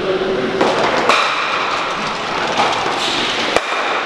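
A Stocksport stock sliding down the hall court and knocking into the other stocks, with sharp clacks about half a second and a second in, over a steady hall noise. A single sharp click near the end.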